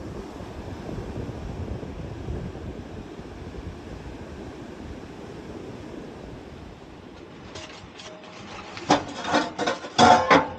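Steady rushing noise of rain and sea. From about seven and a half seconds in, metal objects clink and knock several times with short rings, loudest near the end.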